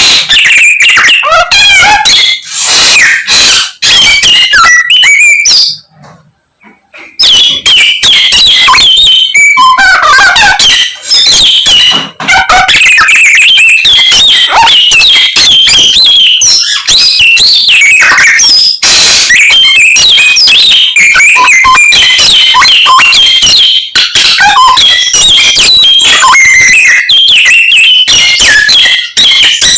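A samyong songbird in full song: a fast, loud, unbroken stream of high chirps, whistles and trills that mimics the calls of other birds. It breaks off briefly about six seconds in, then runs on.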